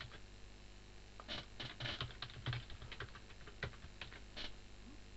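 Faint typing on a computer keyboard: a run of irregular key clicks from about one second in until near the end.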